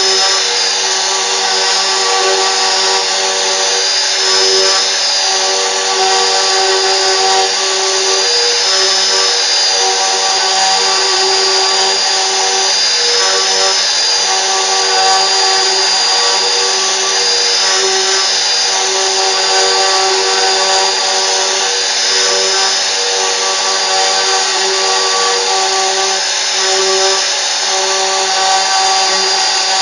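CNC router spindle and cutter running steadily, a continuous whine over a dense rushing noise.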